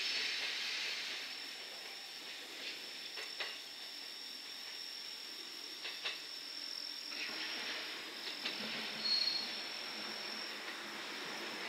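A steady high insect trill, with a few faint clicks and the low running sound of a JR West 227 series two-car electric train moving slowly under a 25 km/h speed restriction. The train sound grows a little louder near the end.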